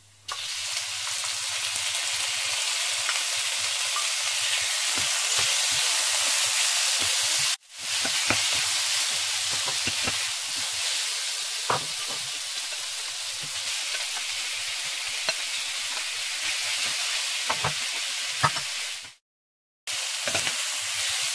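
Raw peeled shrimp dropped into hot oil and fried garlic in a stainless steel pan: a loud sizzle starts at once, with a spatula scraping and knocking against the pan as the shrimp are stirred. The sizzle cuts out briefly about seven seconds in, and again near the end.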